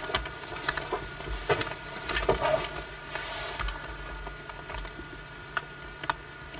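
Camcorder handling noise as the camera is moved about inside the motorhome: scattered light clicks and a few soft low thumps over a steady faint hum.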